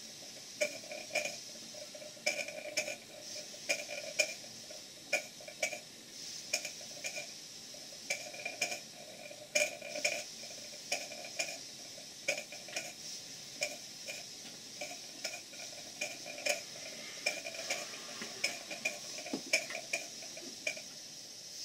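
Two live-steam model engines, a Cotswold Heritage Cyclops engine and a beam engine, running on steam: light metallic clicks from the moving parts, roughly two or three a second and unevenly spaced, over a faint steady steam hiss. The chuffing apparatus has been taken out of the chuff pot, so the exhaust does not chuff.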